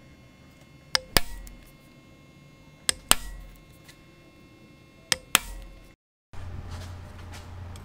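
Knurled steel hand punch pressed through a gasket, three times about two seconds apart, each press giving a sharp double snap with a short metallic ring. After a cut about six seconds in, a steady low hum.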